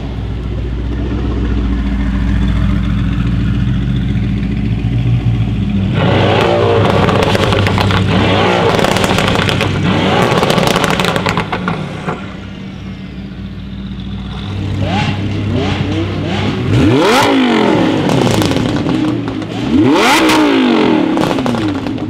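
Mercedes-AMG GT R's twin-turbo V8 through a Fi aftermarket exhaust, first running at a steady idle, then pulling away with rising revs and a rapid string of crackles and pops. From about two-thirds of the way in, a sports-car engine is revved in repeated quick blips, each rise and fall of revs ending in sharp pops.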